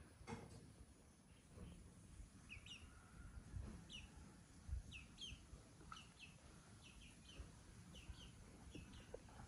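Faint bird chirping: short high chirps, often in pairs, repeating roughly once a second.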